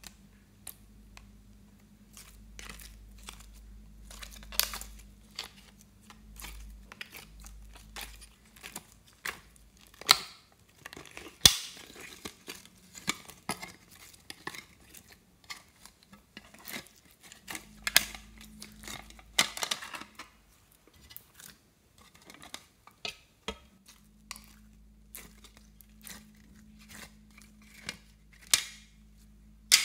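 Store-bought slime being peeled out of plastic containers and pulled and squeezed by hand, making irregular sticky clicks and snaps, over a faint steady low hum.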